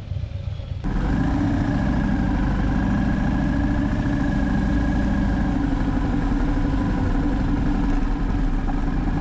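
Motorcycle engine running with a steady, unchanging note, coming in suddenly about a second in after a quieter low rumble.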